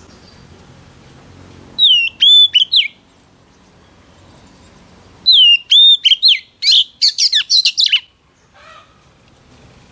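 Female oriental magpie-robin singing two loud phrases of clear whistled notes with sharp pitch drops. The second phrase is longer and ends in a quick run of high notes.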